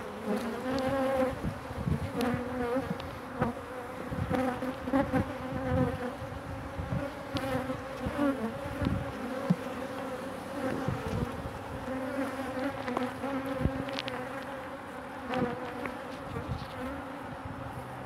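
Honey bee colony buzzing in an open hive: a steady hum of many bees with a low drone and an overtone above it. Scattered short clicks and knocks over the hum.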